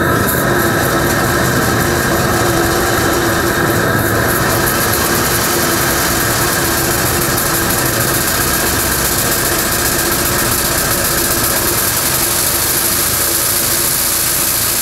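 Homemade steam engine of a steam motorcycle running steadily under load, driving electric generators through belts, with a constant hiss of venting steam over a steady hum.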